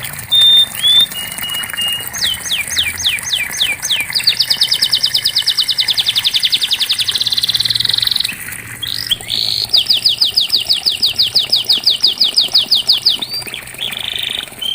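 Domestic canary singing: a few quick downward-sweeping notes, then long rolling trills of rapidly repeated notes, a brief pause near the middle, and another long rapid trill ending in short held whistled tones.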